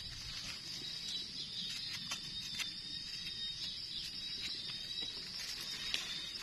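Steady high-pitched chorus of insects such as crickets in dry forest leaf litter, with a few light clicks and rustles as a wild mushroom is handled and its stem trimmed with a knife.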